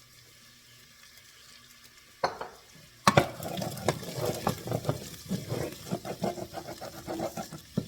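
A spoon stirring and scraping in a pot of food, with dense irregular clatter starting about three seconds in, after a single knock just before.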